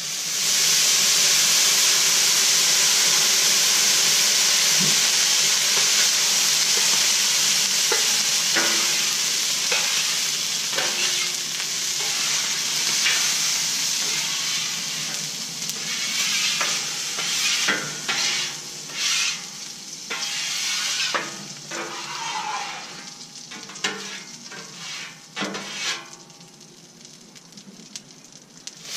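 Water poured onto a hot Blackstone griddle's steel plate, flashing to steam with a loud, steady sizzling hiss that starts suddenly: steam-cleaning the cooktop. Over the second half the hiss dies down while a metal scraper is dragged across the plate in short strokes.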